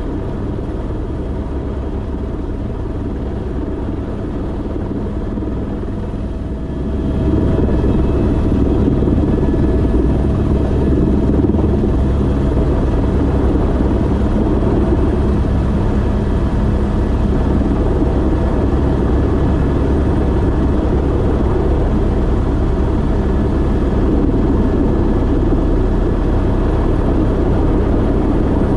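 Airbus H125 helicopter running, with its Arriel turboshaft engine and rotor making a steady rumble that grows louder about seven seconds in and then holds.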